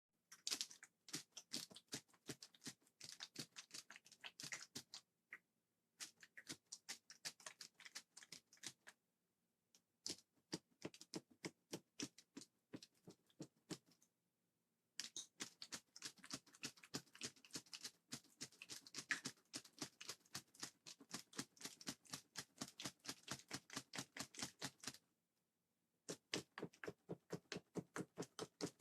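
Cherry MX Blue mechanical keyboard switches being clicked rapidly, about six clicks a second, in runs of several seconds with short pauses between. The switches are being worked over and over to loosen the gunk that made them sticky.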